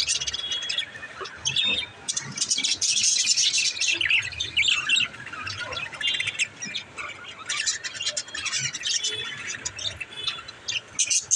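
Pet budgerigars chirping and chattering in a dense run of quick, high calls.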